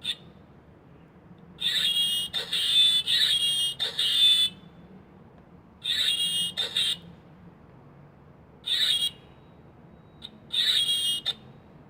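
Electronic chirping from a cheap children's toy sound chip played through a larger loudspeaker. It comes as four bursts of high-pitched tweets: the first lasts about three seconds and the rest under a second each.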